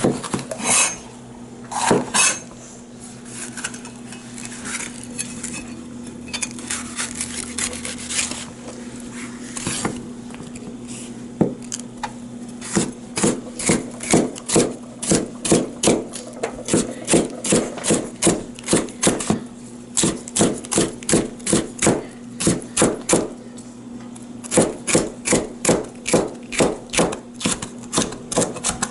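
Chinese cleaver cutting red bell pepper into julienne strips, its blade knocking on a plastic cutting board. The strokes are scattered at first, then run as a steady series of about three a second from about halfway through.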